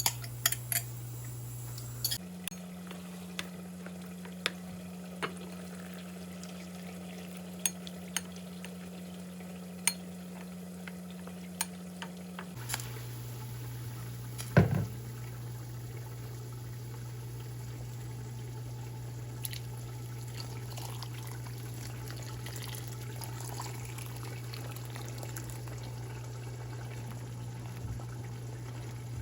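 Soup simmering in a pot with a spoon stirring and clicking against it, and one louder metal clank about halfway through. A steady low hum runs underneath; it steps up in pitch from about two seconds in until about thirteen seconds, then drops back.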